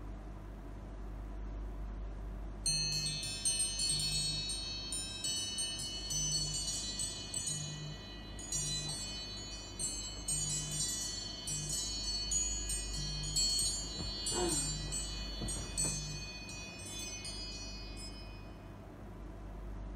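Wind chimes tinkling: many high ringing notes struck at irregular moments, starting about three seconds in and dying away near the end, over a low steady hum.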